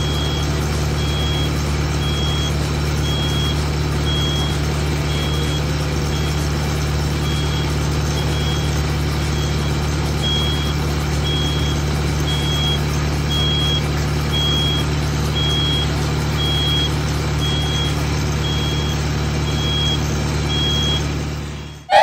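Heavy truck engines from a concrete mixer truck and trailer concrete pump running at a steady low rumble, with a backup alarm beeping high and evenly, a little more than once a second.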